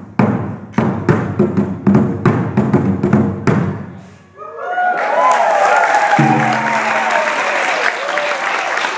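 Taiko drums struck in a fast, uneven run of hard beats led by the large slant-stand drum, the piece ending about three and a half seconds in. After a brief hush, the audience applauds and cheers.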